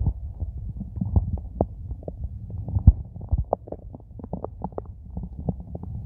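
A hungry human stomach rumbling and gurgling: a low rumble dotted with many irregular pops and clicks, the loudest pops near the middle.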